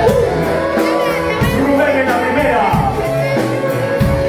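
Live rock band playing a romantic song through a PA, with drums, keyboard and guitar and a male singer's voice over them.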